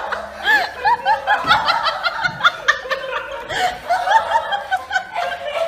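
People laughing: a rapid, unbroken run of short, high giggles and snickers.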